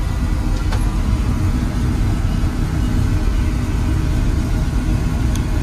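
Oil burner firing in a Weil-McLain boiler: a steady low rumble, with a faint click about a second in and another near the end.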